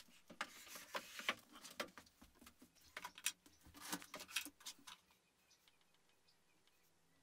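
Rustling and light clicks of paper and a book being handled on a small plywood desk board. It goes almost quiet about five seconds in.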